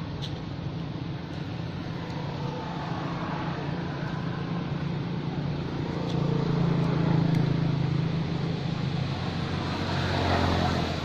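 Steady low drone of a motor vehicle's engine running, growing louder about six seconds in and again near the end, with a few faint clicks.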